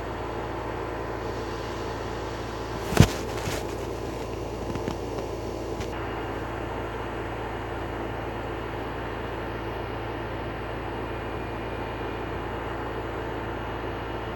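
Steady low hum and hiss, with one sharp knock about three seconds in and a few faint ticks after it.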